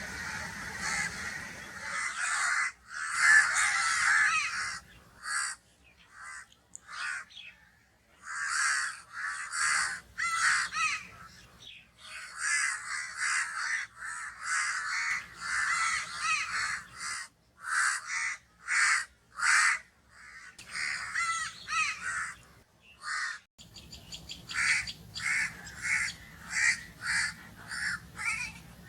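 Crows cawing: a long series of harsh caws, some strung together in quick bunches, with a steady run of short, evenly spaced caws, a little under two a second, near the end.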